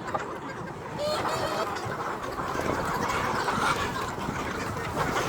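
A flock of chickens clucking, many calls overlapping into a busy chatter that gets louder about a second in.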